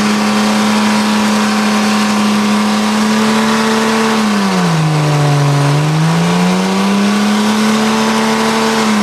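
An SUV's engine is held at high revs during a burnout, its tyres spinning in place with a dense, steady hiss. The engine note sags about four and a half seconds in, then climbs back up a couple of seconds later.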